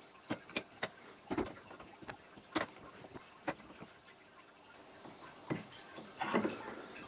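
A string of separate sharp clicks and light knocks, with a short rattling cluster near the end: a 3D-printed plastic bearing block being handled and set between the steel jaws of a bench vise.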